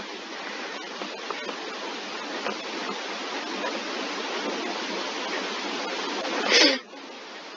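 Steady hissing background noise on the recording, with a few faint clicks scattered through it. About six and a half seconds in comes a short, loud burst of rushing noise that cuts off sharply.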